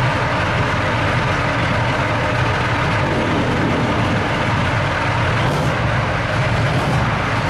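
Soviet IS-2 heavy tank's V12 diesel engine running steadily and loudly.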